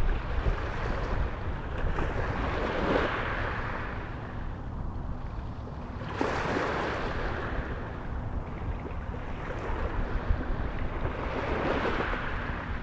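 Small waves breaking and washing up a pebble beach, surging three times: about three seconds in, suddenly about six seconds in, and again near the end, over a low rumble of wind on the microphone.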